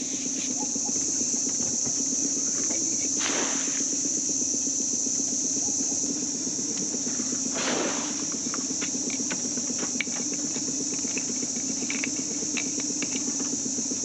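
Insects droning steadily at a high pitch over the low steady hum of the tinny's motor idling. Two brief rushing noises come about three and eight seconds in, and light knocks and clicks follow toward the end.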